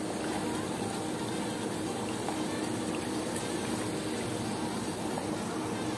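Water churning and bubbling steadily in a jetted dog bath tub, with a faint steady low hum underneath.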